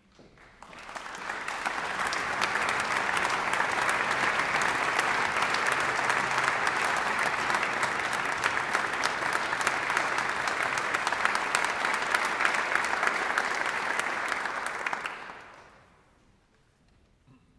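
Audience applauding in a concert hall. The clapping swells over the first couple of seconds, holds steady, then dies away about fifteen seconds in.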